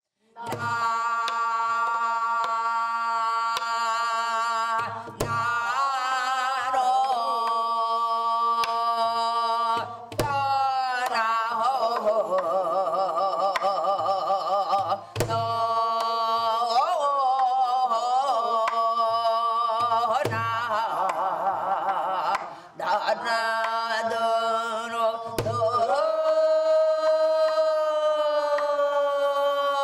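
A woman singing in Korean traditional folk-song style, holding long notes with a wide, wavering vibrato. A low drum strikes about once every five seconds beneath the voice.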